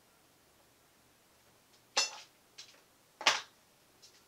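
Two sharp knocks of hard objects about a second and a half apart, with a fainter tap between them.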